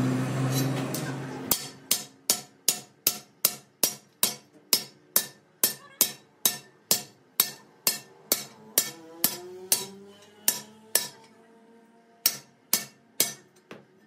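A hammer striking metal in a steady rhythm, about two or three blows a second, each blow leaving a short metallic ring. The blows stop about eleven seconds in, then three more follow. A steady hum fades out during the first second or so.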